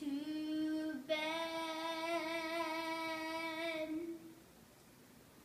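A young girl singing a made-up song: a short held note, then a longer held note with a slight wobble that stops about four seconds in.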